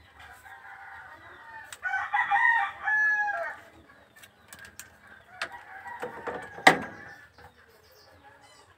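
A rooster crows once, loudly, about two seconds in, the call lasting a second and a half and dropping at the end. Later come a few sharp metallic clicks, the loudest a little past two-thirds through, from crimping pliers squeezing a ring terminal onto a wire.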